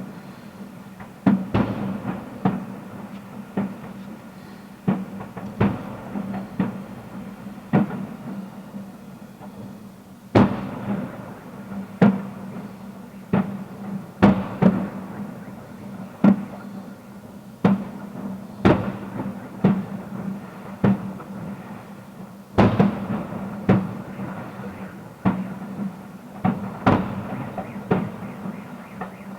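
Fireworks display: aerial shells bursting in an irregular series of booms, roughly one or two a second, each with a short echoing tail. Denser volleys come about ten, fourteen and twenty-two seconds in.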